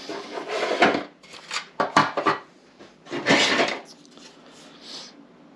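3D-printed plastic model parts being handled and set down on a table: a few clattering knocks and rubs, the loudest in the first second and about three and a half seconds in.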